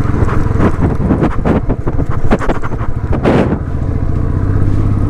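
Royal Enfield single-cylinder motorcycle engine running steadily while the bike rides over a rough, potholed gravel road, with irregular knocks and rattles from the bumps and wind buffeting the microphone.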